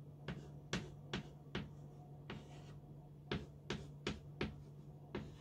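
Chalk writing on a blackboard: a dozen or so short, sharp taps as the chalk strikes the board, with a few brief scratchy strokes between them.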